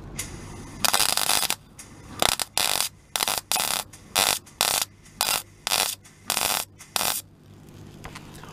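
MIG welder arc crackling as a steel repair patch is butt-welded into a car's underside. One longer burst comes about a second in, then about a dozen short, sharp bursts about two a second as the weld is built up in heavy tacks.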